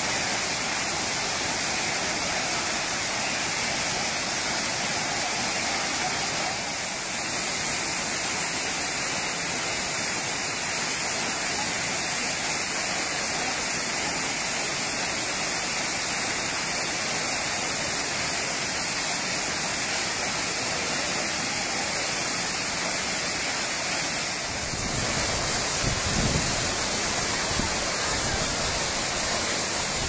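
Waterfall: a steady rush of falling water with no let-up. About five seconds before the end it shifts to a fuller sound with more deep rumble.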